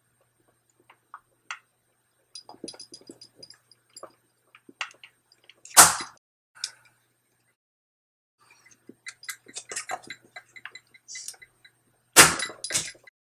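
Plastic rod ends of RC car turnbuckles being pressed by hand onto ball studs, with small clicks and rattles of handling. A loud sharp snap about six seconds in and two more near the end are the rod ends popping onto the balls.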